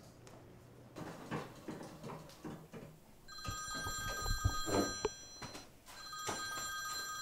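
Landline telephone ringing twice, each ring about two seconds long with a short pause between, the first starting about three seconds in. A few soft low thumps come during the first ring.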